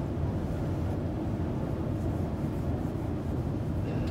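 Steady low rumble of an airport terminal's background noise, with a few faint brief scuffs.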